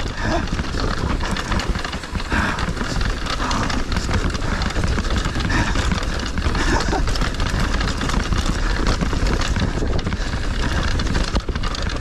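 Dartmoor Hornet hardtail mountain bike clattering and rattling over rough, bumpy trail at speed, with wind rushing over the camera microphone as a steady low rumble.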